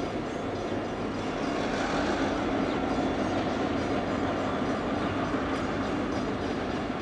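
Two diesel-electric locomotives running together at low speed, a steady diesel engine rumble.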